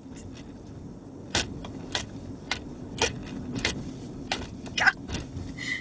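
Steady road and engine noise inside a moving Honda, with a string of sharp taps or knocks about every half second through the middle.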